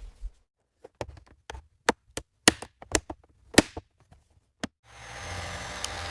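A run of about ten sharp, separate knocks over roughly four seconds, like tool strikes. Near the end a steady machine hum fades in, with a few clicks over it.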